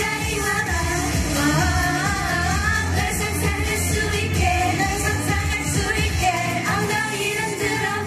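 Korean pop song performed by a female girl group singing into microphones, with a steady dance beat and bass under the vocals.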